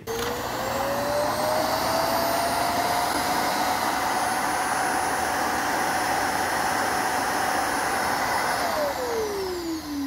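iRobot Roomba s9+ Clean Base automatic dirt disposal station emptying the robot's bin into its bag. Its suction motor spins up with a rising whine, then runs steadily with a loud rush of air. Near the end it winds down with a falling whine as it releases its suction.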